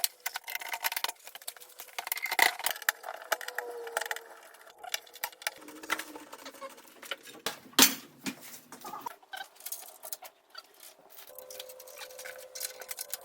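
Irregular clicks, taps and knocks of parts being handled and fitted as a mitre saw is assembled, with louder knocks about two and a half seconds and eight seconds in.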